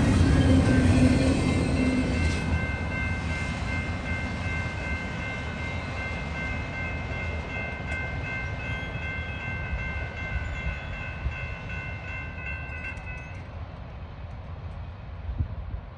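Double-stack intermodal freight train rolling past, its wheels and cars rumbling loudly at first and then fading as the last cars go by. A grade-crossing warning bell sounds steadily over the train and cuts off abruptly near the end.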